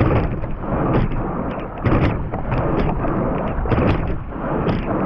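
Water rushing and splashing past a racing quad scull, with wind on the microphone, swelling about every two seconds with each rowing stroke. Sharp knocks come in between the swells.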